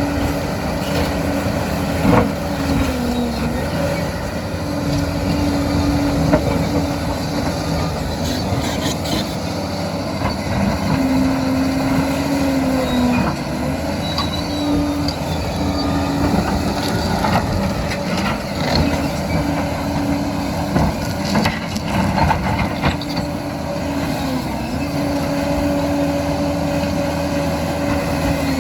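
Liebherr PR 746 crawler dozer working: its diesel engine runs with a steady drone whose pitch dips briefly several times as it takes load, over the clatter of the steel tracks and scattered clanks and knocks.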